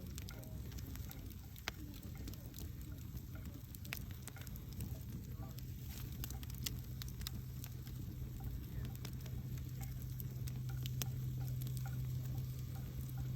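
Wood campfire crackling, with scattered sharp pops and snaps over a low steady hum that grows a little louder about four seconds in.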